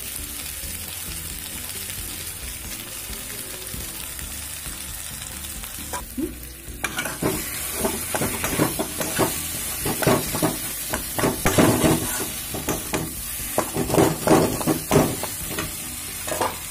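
Oil sizzling in a kadai. From about seven seconds in, a metal spatula scrapes and presses boiled potato against the pan in quick, uneven strokes, mashing it into the fried vegetables and spices for the stuffing.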